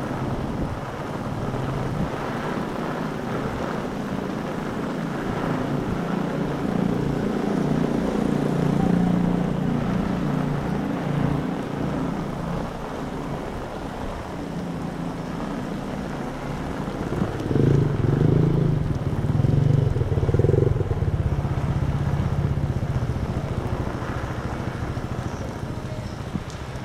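Vehicles passing on a rain-soaked city street, their engine hum swelling twice, the second time louder about two-thirds of the way in, over a steady wash of rain and wind noise.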